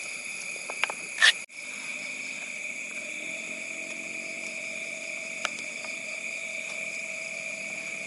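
Steady high-pitched chirring of night insects, with a few short clicks, the loudest about a second in.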